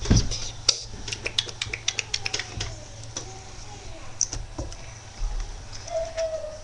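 Computer keyboard being typed on: a run of quick, irregular key clicks, sparser later on, after a knock at the start.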